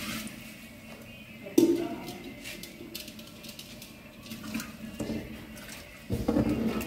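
Water being poured into an aluminium cooking pot trails off at the start. About a second and a half in comes a sharp metal clank, then scattered clinks and scrapes of a metal utensil stirring inside the pot. Near the end there is a louder low rumble.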